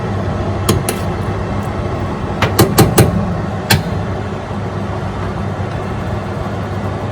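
A steady low mechanical hum, like a fan or motor running, with a handful of sharp clicks and knocks in the first four seconds.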